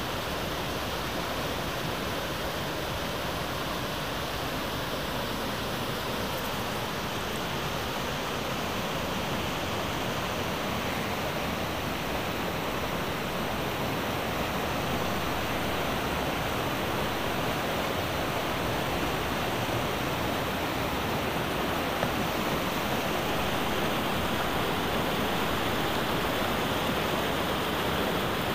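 Steady rush of a mountain creek's whitewater tumbling over boulders, growing slightly louder toward the end. The creek is running high, which the hikers put down to water let out through an opened dam gate upstream.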